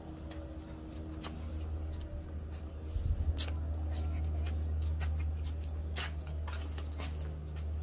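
Soft grass broom sweeping a concrete floor: short scratchy swishes of the bristles, over a steady low hum.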